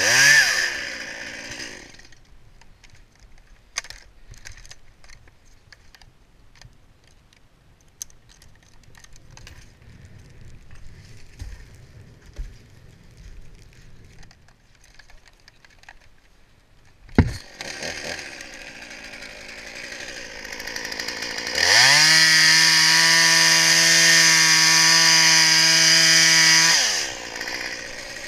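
Chainsaw revving briefly and dropping back, then a long quieter stretch with small clicks and a sharp knock about 17 seconds in. The saw then runs low for a few seconds before being held at full throttle, a steady high-pitched whine, for about five seconds, and drops back to idle near the end.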